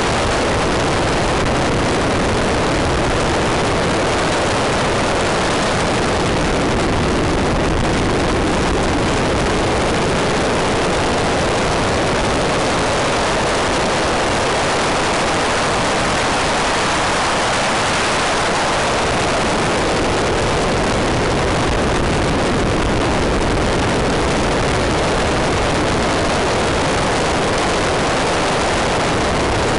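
Rally car driven at speed on a special stage, heard from an onboard camera: a loud, steady wash of engine and road noise with no clear pitch.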